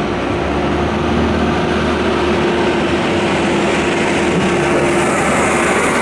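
Piper J-3 Cub's light piston engine and propeller droning steadily in flight, one held engine note, growing slightly louder toward the end.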